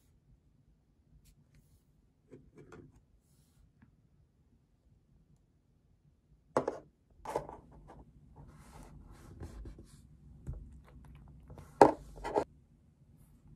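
Small glass cuticle-oil bottle handled on a desk: sharp clicks and knocks starting about six seconds in, the loudest near the end as the bottle is set on the table, with light rubbing and scraping between them.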